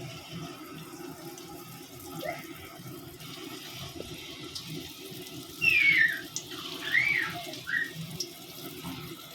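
Egg-and-potato bora batter deep-frying in hot oil in a kadai, a steady sizzle that grows fuller about three seconds in. From about six seconds in there are a few short, loud squeaky chirps that rise and fall.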